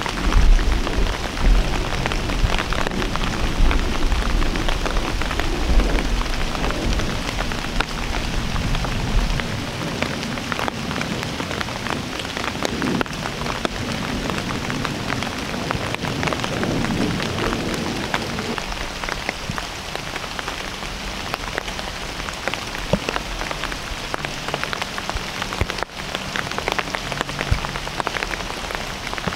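Steady rain pattering on leaf litter and branches, many small drops ticking, with a low rumble through the first nine seconds or so.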